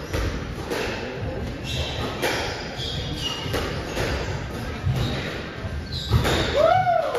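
Squash rally on a walled court: the ball is struck and smacks off the walls in sharp, irregular impacts that echo in the hall, with high squeaks of shoes on the court floor.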